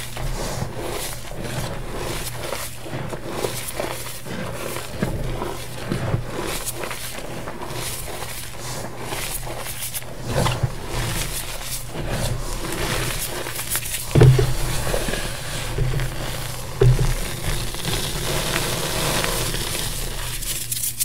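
Hands squeezing and crumbling powdered gym chalk: a steady soft crunching and crackling, with a few louder dull thumps in the second half.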